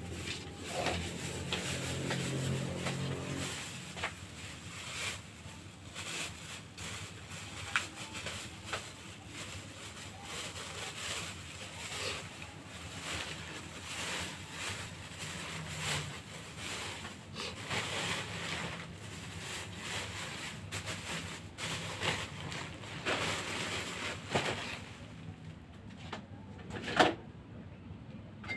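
Large clear plastic bag crinkling and rustling in irregular bursts as a Christmas tree with tinsel garland is pushed and packed into it, with scattered small knocks and one sharp knock near the end.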